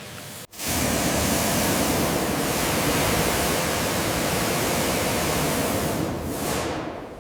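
High-pressure water spray from a pressure washer hitting the vehicle: a loud, steady hiss that starts abruptly about half a second in and breaks off briefly near the end.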